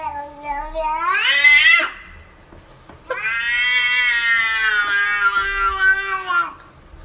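A cat yowling in two long, drawn-out meows. The first rises in pitch over about a second and a half; the second is held for about three seconds.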